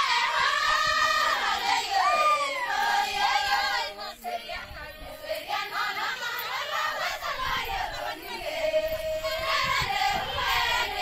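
A chorus of Maasai women singing together in high voices, many voices overlapping with sliding pitches, with a brief dip about four seconds in.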